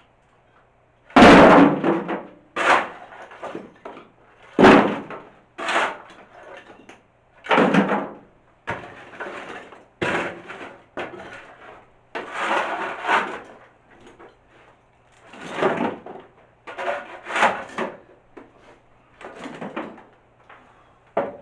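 Shovel scooping and scraping up rubble and debris, a noisy scrape or clatter every second or two, with louder crashes about a second in and just under five seconds in.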